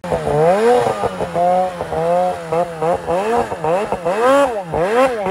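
Snowmobile engine revved hard up and down over and over, its pitch rising and falling about twice a second as the rider works the throttle.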